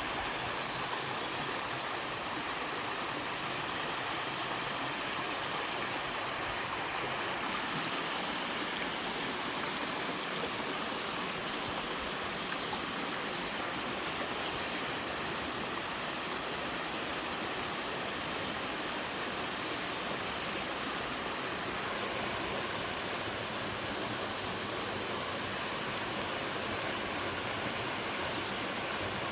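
A waterfall pouring steadily into a mountain stream, a constant even rush of falling and running water.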